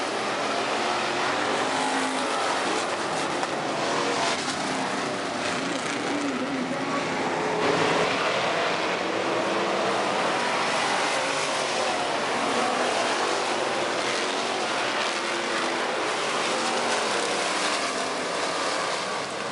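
A field of hobby stock race cars racing on a dirt oval, several engines running hard and passing by, their pitch rising and falling as they lift and accelerate.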